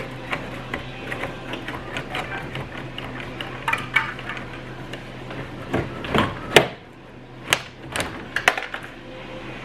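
Nissan 240SX plastic dashboard being pulled loose by hand: scattered knocks, clicks and creaks of the panel shifting, with a few louder bangs between about six and eight and a half seconds in.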